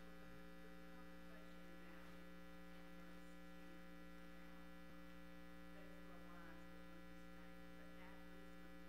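Near silence with a steady electrical mains hum, a constant buzz with several even overtones, and now and then a very faint far-off voice.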